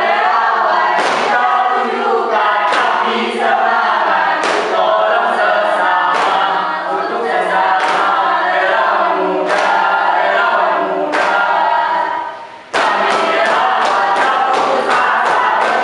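A group of teenagers singing a yel-yel cheer song in unison, with hand claps at intervals. About twelve seconds in the singing breaks off briefly, then comes back with faster, regular clapping.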